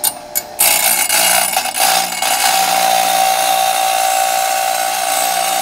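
Half-horsepower grinder's wheel grinding a steel mower blade: two brief touches, then a long continuous grinding rasp over the steady whine of the spinning wheel.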